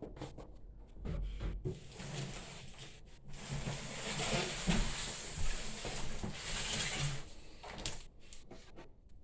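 Rustling, rubbing and a few knocks from hands handling PC parts and packaging. A dense rustle builds about two seconds in and dies away near the end.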